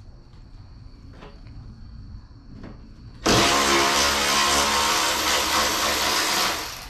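Cordless power tool motor running in one loud burst of about three and a half seconds. It starts suddenly about three seconds in and cuts off abruptly, with a steady whine.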